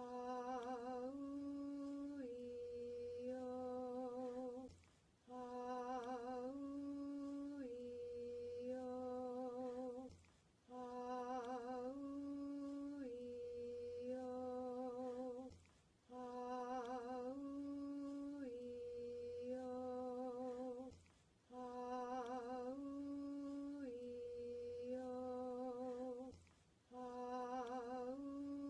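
A single voice softly chanting the vowels 'Ah-oo-ee-oh' as a healing chant, each vowel held for about the same length, with the second note a step higher than the rest. The phrase repeats about every five seconds with a brief breath between, five times over and starting a sixth near the end.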